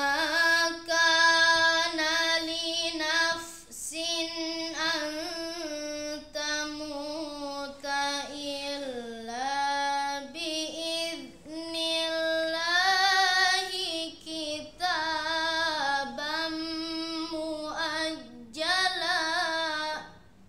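A boy chanting Quran recitation in a melodic style, holding long ornamented notes in several drawn-out phrases with short pauses for breath between them.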